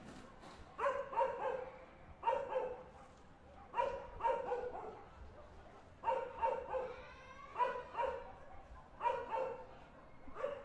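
A dog barking in repeated bouts of two to four barks, about every second and a half, over a faint steady background hum of the neighborhood at night.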